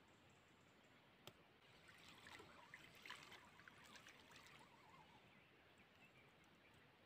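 Faint trickling and splashing water, with a single sharp click about a second in.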